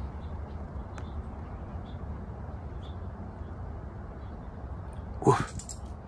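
A small dog gives one short bark about five seconds in, over a steady low background rumble.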